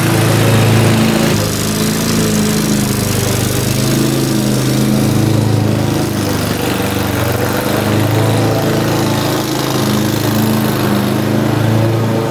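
Dixie Chopper Zee 2 zero-turn riding mower running steadily under load as it cuts tall, overgrown grass. The engine is close at first and gets a little quieter about a second and a half in as the mower moves away.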